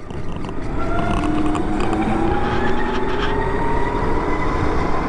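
2012 Zero DS electric motorcycle riding and accelerating: its motor whine rises slowly and steadily in pitch as speed builds, over a steady rush of wind and road noise.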